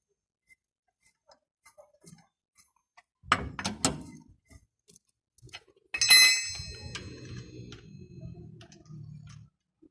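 Metal knocks from a lug wrench working the wheel nuts of a car wheel being tightened: a few sharp clanks about three seconds in, then one loud metallic clang that rings on for about a second, about six seconds in, followed by a low rumble.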